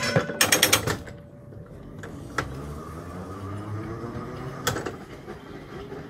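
Electric tram moving off: a short clatter of knocks at the start, then the running rumble of the tram with a faint rising motor whine as it picks up speed, and single wheel clicks over the track.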